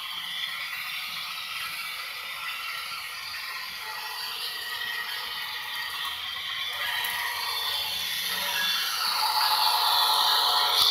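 Model train running on plastic-roadbed track: steady motor whir with wheel rattle and clatter, growing louder over the last few seconds as the locomotives pass close by.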